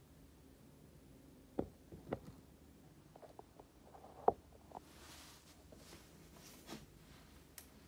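Faint handling sounds: a few light taps, then soft rustling of folded origami paper from about five seconds in.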